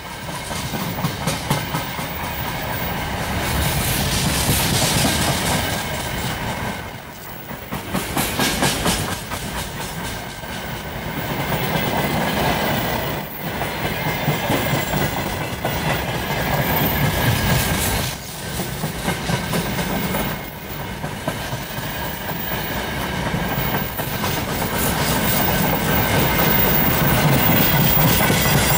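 Freight train of open gondola wagons rolling past close by: steel wheels clattering over the rail joints over a continuous rumble, the level dipping briefly now and then as the wagons go by.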